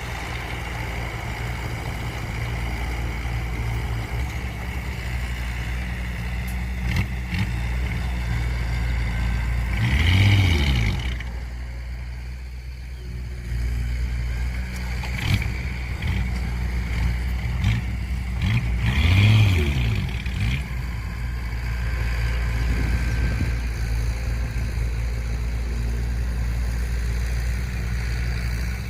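Diesel engine of heavy earthmoving equipment running steadily, revving up and back down twice, with a few sharp metallic knocks in between.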